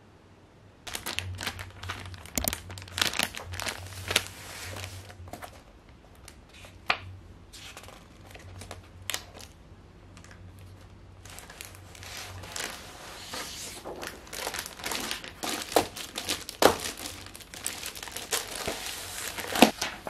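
Stiff sheets of coloured chart paper being handled and leafed through, crinkling and crackling with sharp clicks. It starts about a second in, eases off in the middle and picks up again toward the end.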